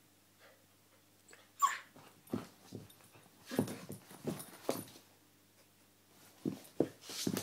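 Husky puppy vocalizing: one sharp high yelp that falls in pitch about a second and a half in, then strings of short, low whining noises in two bunches, the second near the end.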